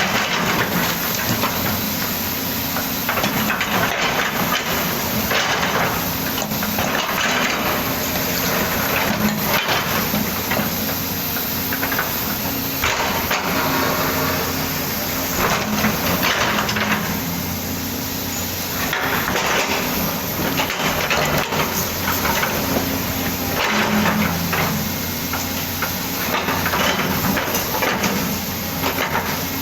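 Volvo excavator's diesel engine running steadily under load, with the bucket scraping and knocking as it digs soil and stones.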